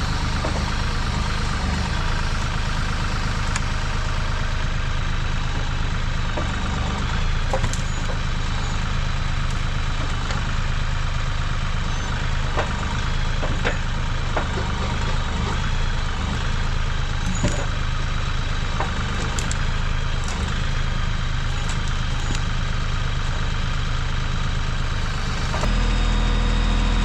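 An engine idling steadily, with a few light clicks and knocks over it; about a second before the end its low rumble steps up louder.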